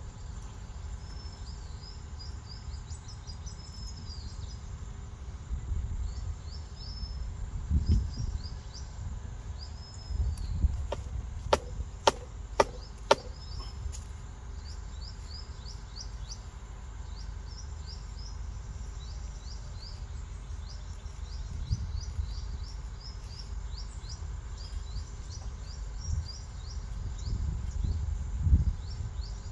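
Small birds chirping over and over in the background, with a quick run of four or five sharp knocks a little under halfway through as the tapper's dao strikes at the date palm. Occasional low rumbles.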